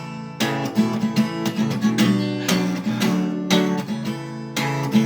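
Acoustic guitar strummed in a steady rhythm, about one full strum a second with chords ringing in between, in an instrumental break of a song.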